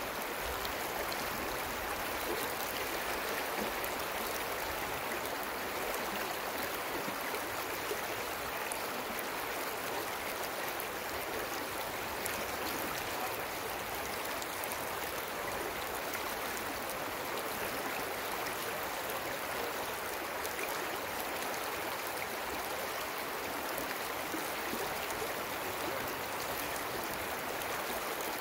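Trout stream flowing, a steady, unbroken rush of running water.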